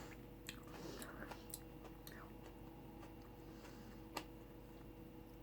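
Faint chewing with a few soft mouth clicks, over a low steady room hum.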